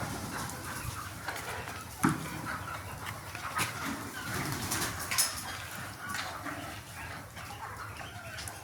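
A flock of desi chickens clucking and calling over one another, with a few sharp clicks.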